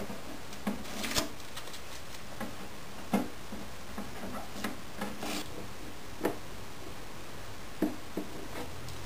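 Blue masking tape being peeled off the rim of an archtop guitar, where it clamped the newly glued binding: a series of short rips and crinkles a second or so apart, the sharpest about three seconds in.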